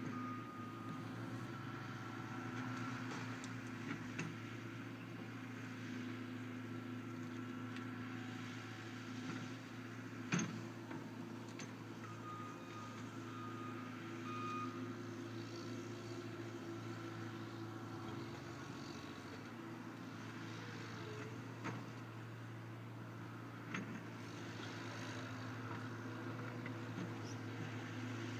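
Komatsu PC75UU mini excavator's diesel engine running steadily while it works, with a few short knocks from the machine, the loudest about ten seconds in.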